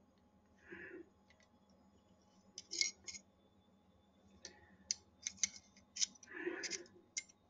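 Faint small metal clicks and clinks of Colt 1911 pistol parts being handled as the thumb safety is worked into the frame: a couple of clicks about three seconds in, then a quicker run of them in the second half.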